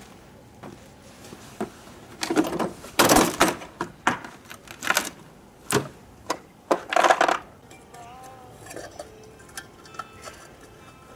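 Metal hand tools clanking and rattling: a burst of sharp clinks and clatters lasting about five seconds, then quieter.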